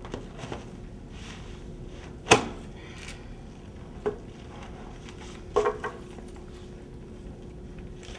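A shallow metal soil pan knocking and clattering as a block of soil is turned out of it onto plastic-covered floor and the empty pan is set down. There are a few knocks, the loudest about two seconds in, another near four seconds and a short clatter near the middle, over a faint steady hum.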